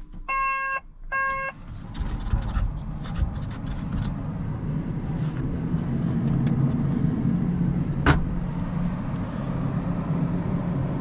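Two short electronic beeps from the Bobcat 145 excavator's controls, then its diesel engine cranks briefly and fires right up on a cold start with the block heater unplugged, settling into a steady idle. A single sharp click about 8 seconds in.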